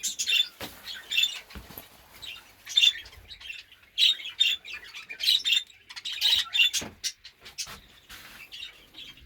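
Budgerigars in an aviary chattering and squawking: a run of short, harsh calls repeating about every half second to a second.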